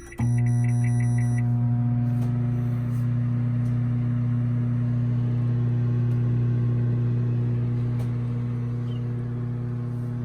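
Microwave oven starting up to thaw frozen chicken breasts: a brief series of beeps, then a steady low electrical hum as it runs.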